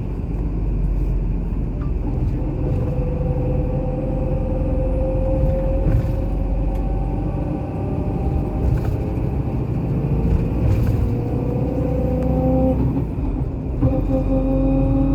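Car driving on the road: steady low rumble of engine and tyres, with an engine whine that rises as the car speeds up, drops once about thirteen seconds in, then rises again.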